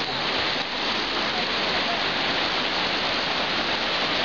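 Fast-flowing river rushing steadily, a continuous even hiss of moving water.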